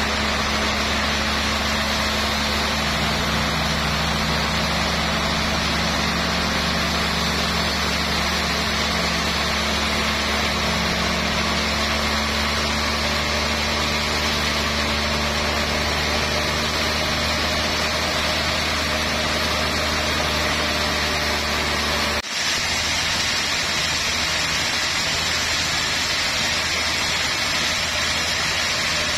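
Sawmill band saw running and cutting through a trembesi (rain tree) log: a steady, loud machine drone with a low hum. There is one brief break about three-quarters of the way through.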